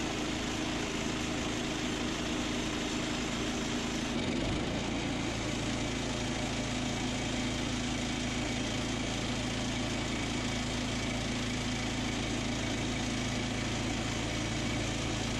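Portable sawmill's engine running steadily, its pitch shifting slightly about four seconds in.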